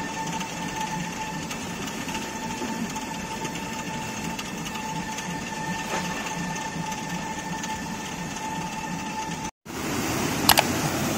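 Ladakhi water-powered stone grain mill (ranthaq) running, with the millstone grinding and a steady mechanical rattle from the turning mill. After a cut near the end comes the louder rush of the water that drives the mill.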